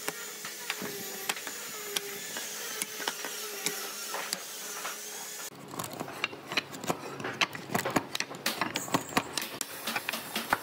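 A steady mechanical hum with a wavering high whine, which changes abruptly about five seconds in to a quick, irregular run of sharp clicks and scrapes as a small hand tool is worked against a wooden stick.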